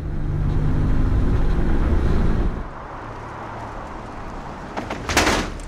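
Camouflaged Jaguar E-PACE prototype driving past at speed: loud engine and tyre noise for the first two and a half seconds, then a quieter steady running sound. A short, loud burst of rushing noise comes about five seconds in.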